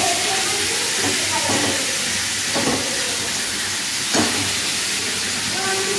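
Sliced onions sizzling in hot oil in a kadhai, a steady hiss.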